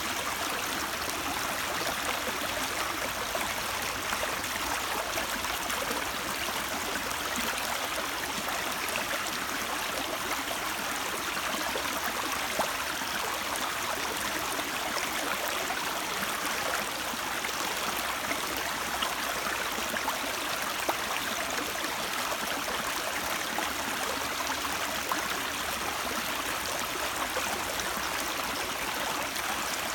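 Flowing stream of water, a steady even rush with small splashes.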